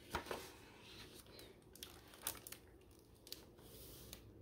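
Faint handling of a hardcover picture book: paper pages rustling as they are turned and the book is closed and flipped over, with a few light clicks.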